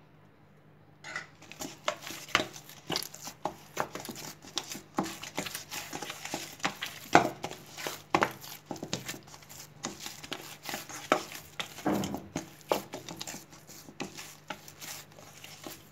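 Hands kneading oiled semolina dough in a stainless steel bowl: irregular knocks and slaps of the dough and hands against the steel, starting about a second in.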